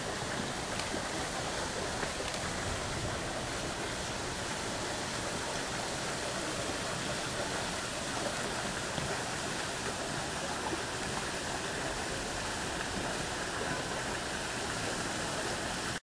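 Steady rushing of running water, an even hiss that holds at a constant level throughout.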